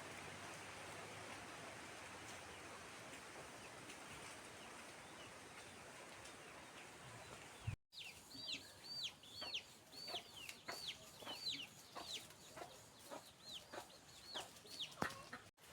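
Steady outdoor hiss for about half the time. Then, after a sudden cut, chickens make a run of short, high, repeated calls, about two a second, each falling in pitch, with light clicks among them.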